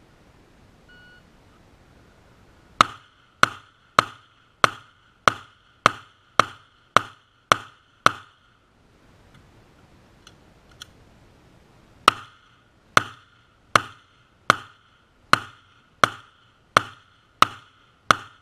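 Glock 17 9mm pistol firing two strings of shots. Ten shots come at a steady pace of a bit under two a second. After a pause of about four seconds for a slide-lock reload, nine more follow at a slightly slower pace, the shooter slowing as the target circle gets smaller.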